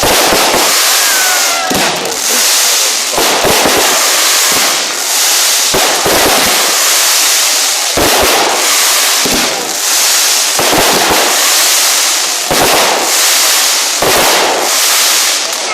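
Aerial fireworks bursting one after another, a bang roughly every second, with a constant crackling fizz between the bangs.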